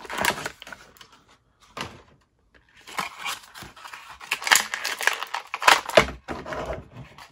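Clear plastic blister of a carded action figure crackling and crinkling as it is pulled off the card and squeezed open to free the figure, in irregular bursts with a short lull about two seconds in.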